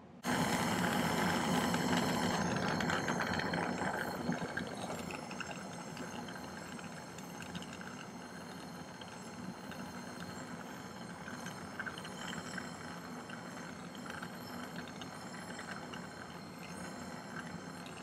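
Jewelry soldering torch burning with a steady hiss as it heats a small sterling silver piece for hard soldering. The hiss starts abruptly, is loudest for the first few seconds, then settles a little lower.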